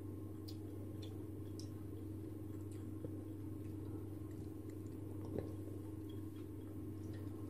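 Quiet room with a steady low hum and a handful of faint, scattered light clicks.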